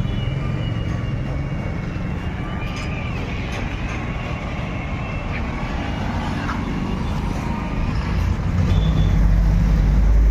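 Steady low rumble of motor vehicle noise, growing louder about eight seconds in.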